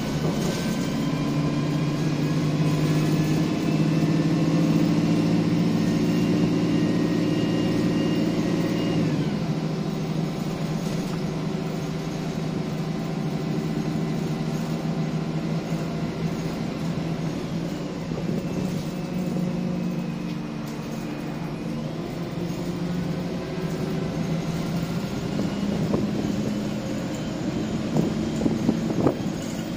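MAN 18.240LF bus's six-cylinder diesel engine heard from inside the saloon, pulling hard with a rising whine and then dropping in pitch at a gearchange about nine seconds in. It runs quieter through the middle and builds again near the end, with a few knocks and rattles.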